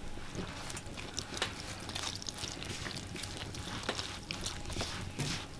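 Water poured from a metal kettle into wheat flour in a metal bowl while a hand mixes it into dough: a thin trickle with an irregular patter of small scratchy rustles from the hand working the flour.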